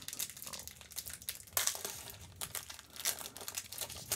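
Foil wrapper of a Magic: The Gathering draft booster pack crinkling and crackling in irregular bursts as it is torn open by hand.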